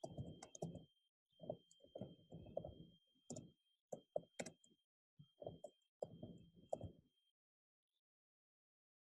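Computer keyboard being typed on in several quick runs of light keystrokes, stopping about seven seconds in.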